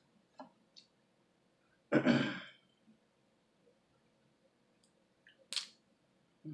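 A person eating seafood by hand: a few soft mouth clicks, a short breathy exhale about two seconds in, and a sharp click a little after five seconds.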